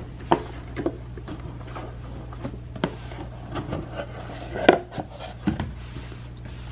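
A cardboard box being handled as its top slides up and off: scattered taps, scrapes and rubs of cardboard and hands, the loudest about two-thirds of the way in, over a steady low hum.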